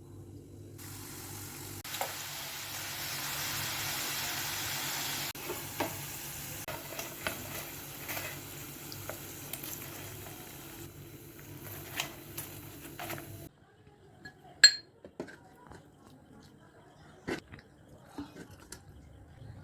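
Parotta dough deep-frying in hot oil: a sizzling hiss starts about a second in and is loudest for a few seconds, with clinks of a metal utensil. Near the end the sizzle cuts off suddenly, leaving a few scattered clinks and taps.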